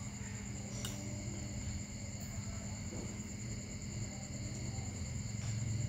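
Steady low background rumble with a constant hum and a thin high steady whine, broken by a single light click about a second in.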